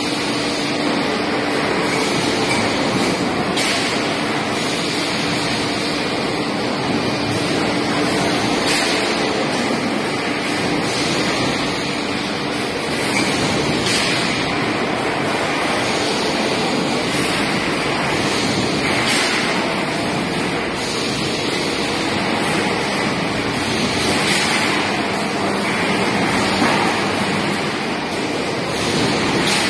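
Electric overhead bridge crane (Diapem, 15-tonne, with motorised hoist and trolley) running while it lifts a steel coil: a steady mechanical rumble and hiss of the hall, with a faint hum for the first several seconds and brief sharper noises every few seconds.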